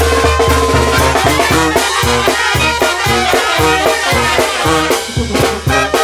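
Live banda sinaloense playing a cumbia: trumpets and clarinets over a steady, evenly pulsing bass beat, loud, with a brief dip in the music near the end.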